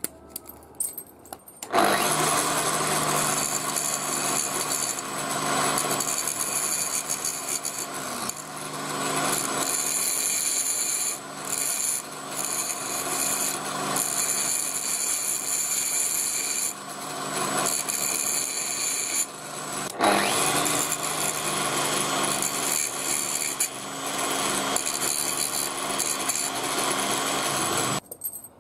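Chain links clink. About two seconds in, a DeWalt angle grinder starts and runs with a steady motor whine while a small steel chain swivel part is held by hand against its spinning abrasive disc and ground. The level rises and falls as the part is pressed on, and the grinder stops just before the end.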